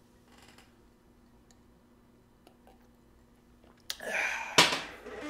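Items being handled while unpacking a subscription box: a few faint clicks, then about four seconds in a sudden loud rustle with a sharp knock in the middle of it.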